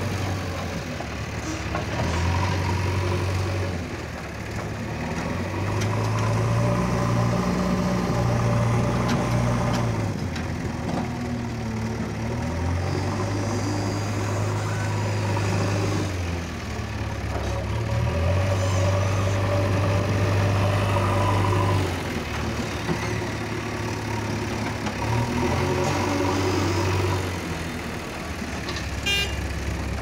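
JCB 3DX backhoe loader's diesel engine running, its note rising and falling every few seconds as the machine moves and works its front loader bucket.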